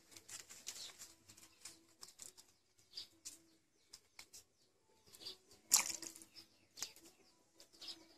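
Knife scraping scales off and cutting open small fish on a wooden chopping block: irregular scrapes and taps, the sharpest about six seconds in.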